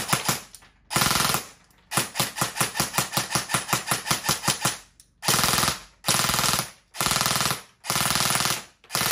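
E&C 603 DE III M4-style airsoft electric gun, tuned to about 500 fps, firing: a string of rapid shots at about eight a second that runs for several seconds. Then come five short bursts of about half a second each.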